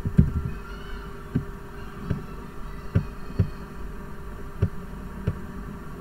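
Typing on a computer keyboard with mouse clicks, heard as scattered short dull thumps about one or two a second, over a steady low hum.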